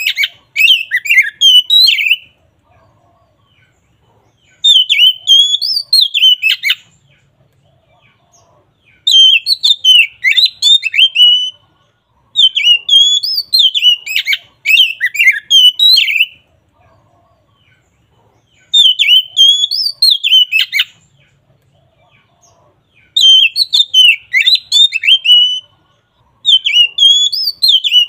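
Oriental magpie-robin (kacer) singing loud, clear, full song in quick whistled and trilled phrases. Each phrase lasts two to three seconds, and about seven come one after another with short pauses between them.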